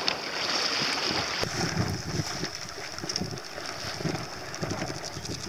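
Wind buffeting the microphone and water splashing along the hull of a small sailing dinghy under way, with a steady hiss.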